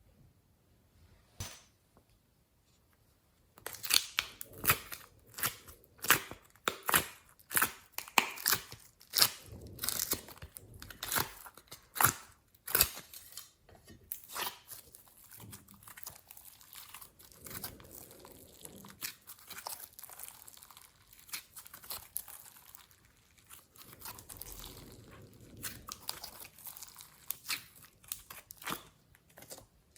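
Slime being worked by hand. After a single click, a run of sharp pops and clicks starts a few seconds in at about two a second, then gives way midway to quieter, continuous sticky crackling.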